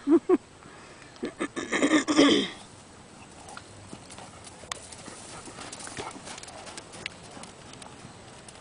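Hoofbeats of a Thoroughbred horse cantering on soft arena dirt, heard as faint scattered thuds. There are two short loud sounds at the very start, and a loud pulsing call from about one and a half to two and a half seconds in.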